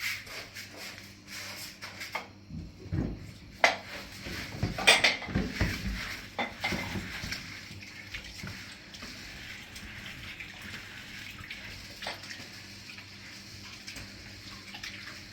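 Dishes and utensils clinking and knocking, then a steady hiss of running water from a tap.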